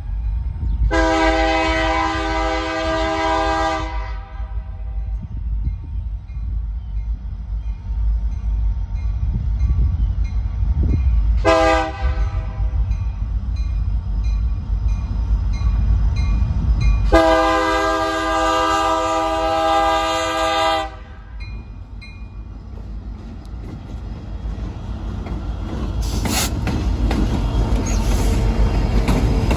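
Diesel locomotive air horn sounding a long blast, a short blast, then a long blast as a train led by EMD SD60M locomotives approaches a grade crossing. A steady low rumble from the diesel engines runs underneath and grows louder near the end as the lead locomotive passes close by.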